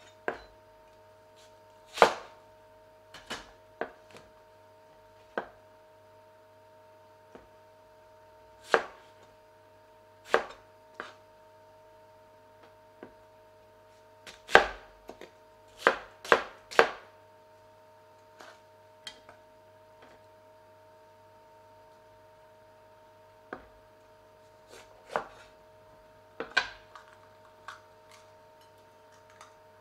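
Chinese cleaver chopping an onion on a plastic chopping board: sharp, separate knocks of the blade striking the board at irregular intervals, in short runs with pauses between. A faint steady hum sits underneath.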